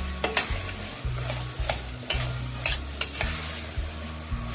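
A metal spoon stirring chicken, onion and tomato paste frying in a metal pot, scraping and knocking against the pot about twice a second over a steady sizzle.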